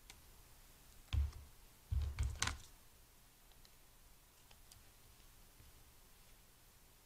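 Brief handling noises of a strip of tape and scissors over a cutting mat: a bump with a rustle about a second in, a short cluster of rustling clicks around two seconds in, then only a few faint ticks.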